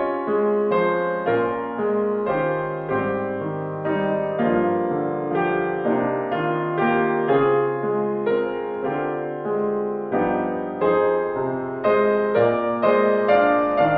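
Solo piano playing, with notes and chords struck one after another, each ringing and fading. The playing grows slightly louder near the end.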